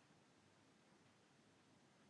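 Near silence: room tone in the pause between a sleeping pug's snores.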